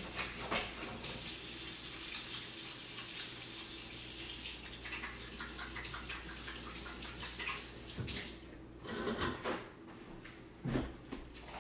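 Kitchen faucet running as hands are washed under it, shutting off about eight seconds in, followed by a few light knocks.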